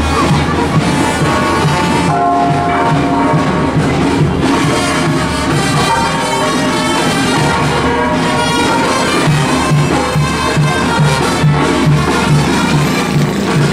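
Brass band music with trumpets and trombones over a steady oom-pah bass beat.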